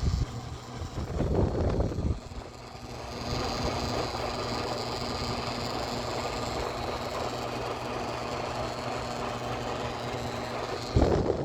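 Air conditioner humming, its airflow picking up about three seconds in and then running steadily, with a louder knock or handling noise near the end.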